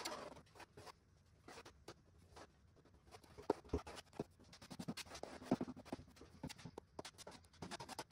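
Metal putty knife spreading and scraping two-part polyester body filler over a shower pan repair: a faint run of short scraping strokes and clicks, busier from about three seconds in.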